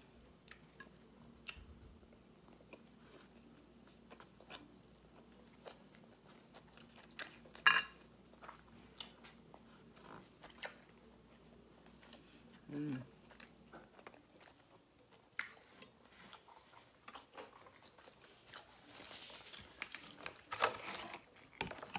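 Close-miked eating sounds: a person biting and chewing soft food with scattered wet mouth clicks. There is a sharper, louder click about eight seconds in, and the chewing gets busier near the end.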